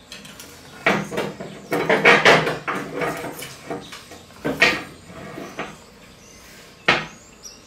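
Metal parts knocking and clattering on a steel welding table as a steel hydraulic line and round metal blocks are set in place. There is a scatter of separate clunks, busiest between one and two and a half seconds in, with another single sharp knock near the end.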